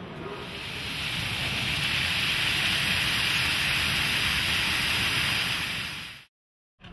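Fountain jets spraying and splashing back into the pool: a steady rushing hiss of falling water that swells in, holds, and fades out near the end.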